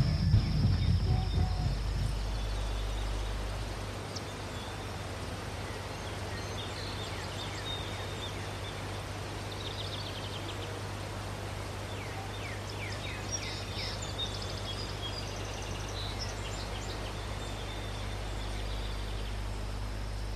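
Rock music fades out over the first few seconds, leaving outdoor rural ambience: a steady low hum and background noise with scattered short, high bird chirps.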